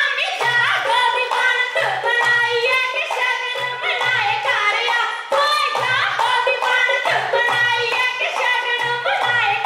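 Women's voices singing a Punjabi folk song for Gidha, with rhythmic hand-clapping and a low drum beat keeping time.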